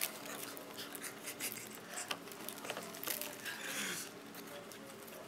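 Scattered small crackles and clicks of crackers and plastic cheese wrappers being handled, with a longer crinkle a little before four seconds in.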